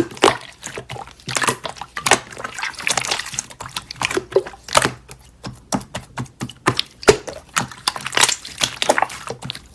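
Water sloshing and splashing in short, irregular bursts.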